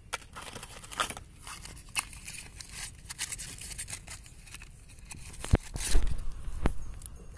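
Hands handling snake-tablet fireworks and their packet: small clicks and crinkling rustles as the tablets are set down on a stone. A few louder dull thumps come about five and a half to seven seconds in.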